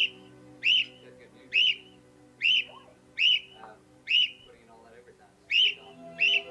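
A small bird calling a single short chirp over and over, about one a second, each rising and falling in pitch, with soft background music underneath.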